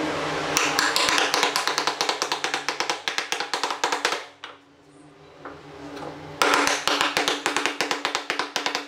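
Small mallet rapidly tapping pine hexagon inlay pieces down into a wooden honeycomb frame, about six taps a second, in two runs with a pause around the middle. Background music plays underneath.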